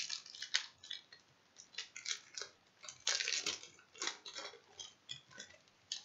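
Trading card pack being worked open by hand: irregular crinkling and crackling of its wrapper, densest about three seconds in.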